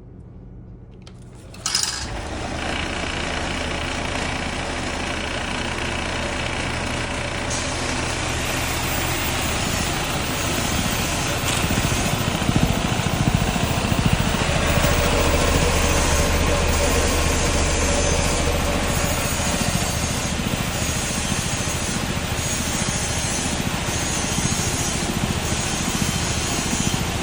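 Vibrating sieve machine starting suddenly a little under two seconds in and then running steadily: a low motor hum under a constant dense mechanical noise.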